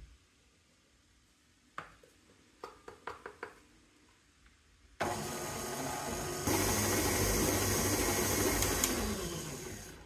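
KitchenAid Classic stand mixer switched on about halfway through, its motor and flat beater running steadily as flour is worked into a cheese-and-butter dough. It steps up in speed a moment later and winds down near the end. A few light taps come before it starts.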